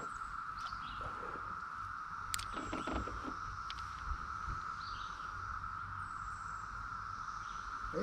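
Chorus of Brood X 17-year periodical cicadas: a steady drone held on one pitch throughout, with a few faint ticks.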